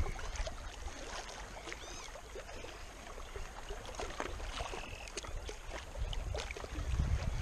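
Small waves lapping and splashing against a rocky lakeshore, with wind rumbling on the microphone, strongest at the start and again near the end.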